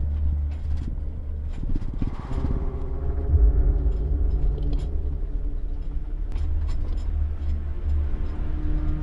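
Off-road vehicle driving along a rough dirt trail: the engine runs steadily under a low rumble, with scattered knocks and rattles.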